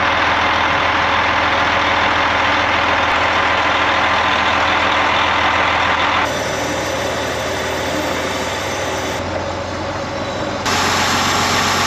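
A vehicle engine idling steadily. Its tone shifts abruptly about six seconds in and comes back near the end.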